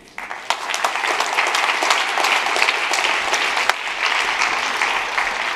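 Audience applauding: many hands clapping together, building within the first half second and then holding steady.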